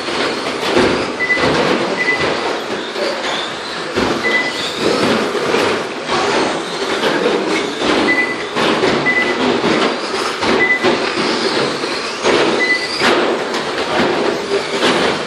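Electric 1:10 short-course RC trucks racing on an indoor carpet track: a steady mix of motor whine and tyre noise echoing in the hall, with knocks from cars hitting the track, and short high beeps every second or so.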